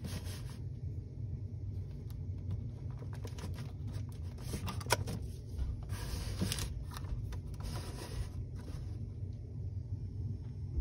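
Handling noise of a plastic camcorder being picked up and turned over by hand: light rustles and a few sharp clicks and knocks, the loudest about five seconds in, over a steady low room rumble.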